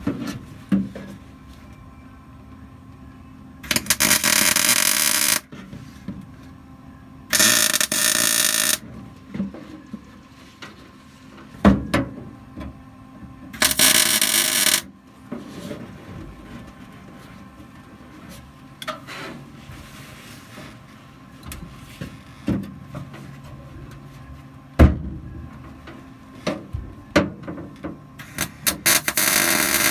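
A gas-shielded MIG welder laying tack welds on trunk brackets in sheet steel: four bursts of welding, each one to two seconds long, with knocks and taps of metal between them.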